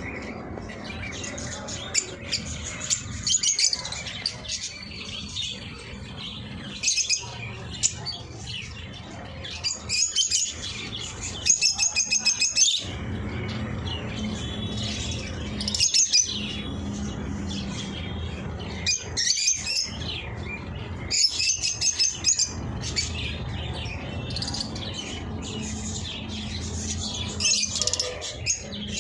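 Eye-ring lovebirds chattering with high-pitched chirps in irregular bursts, now and then breaking into rapid strings of sharp chirps, over a steady low hum.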